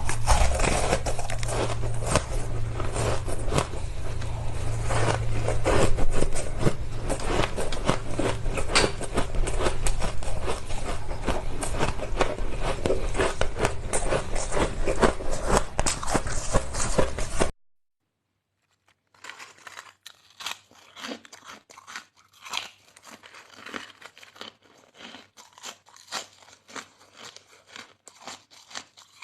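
Ice being bitten and chewed close to the microphone: dense, continuous crunching that cuts off abruptly about two-thirds of the way through. After a second or so of silence it resumes more quietly as separate crunches.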